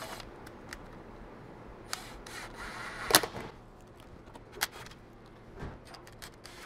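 Scattered metallic clicks and clinks of bolts being handled and started by hand into a CVT transmission oil pan, with the sharpest clink about three seconds in.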